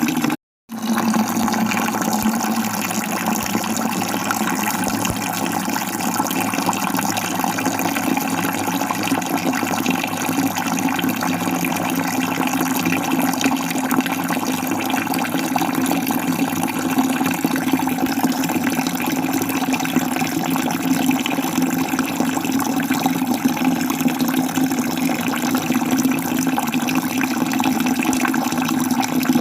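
Steady rush of a waterfall, water falling continuously with an even, unchanging sound. It cuts out completely for a split second just after the start, then resumes.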